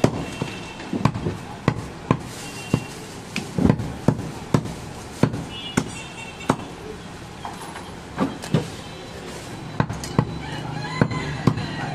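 Heavy cleaver chopping goat mutton and fat on a wooden log chopping block: a run of sharp knocks, about one or two a second, with short uneven pauses.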